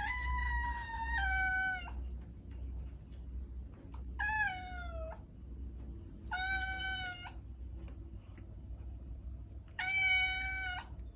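A domestic cat meowing four times, each meow about a second long and fairly high-pitched. The first meow steps down in pitch partway through, and the second slides downward. A low steady hum runs underneath.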